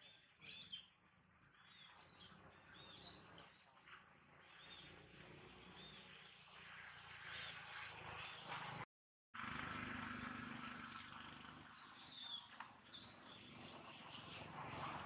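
Outdoor ambience full of short, high-pitched animal chirps, repeated irregularly and growing busier after a brief dropout to silence about nine seconds in.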